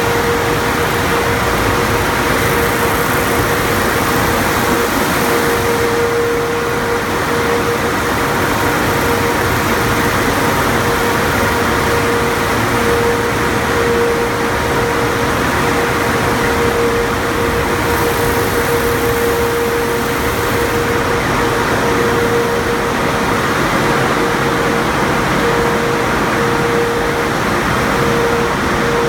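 Tunnel car wash machinery running: a steady rushing of high-pressure water spray over a constant, single-pitched motor or pump hum that wavers slightly.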